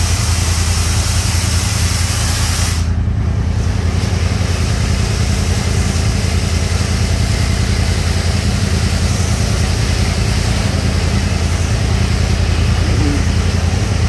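Automatic car wash spraying water over a side-by-side off-road vehicle, a steady hiss over a constant low machine hum. The spray hiss drops out briefly about three seconds in, then resumes.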